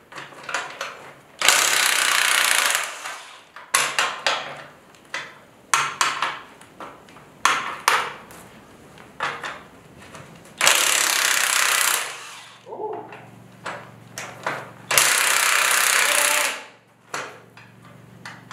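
Cordless impact wrench hammering in three bursts of a second or two each, backing bolts out of a steel boat trailer's mounts, with short metal knocks and clanks between the bursts.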